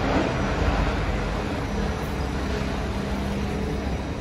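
Steady low rumble of a running vehicle, with a faint hum, starting suddenly just before as a new scene begins.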